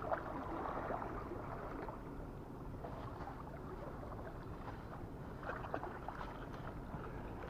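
Low, steady wash of small waves on a rocky shore, with a couple of faint ticks.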